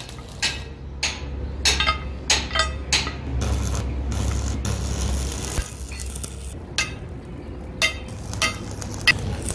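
Steel hand tools and a hammer striking a truck tie rod end: sharp, ringing metal clinks, a quick run of them in the first few seconds and a few more spaced strikes near the end. In between there is a couple of seconds of steady rushing noise with a low hum.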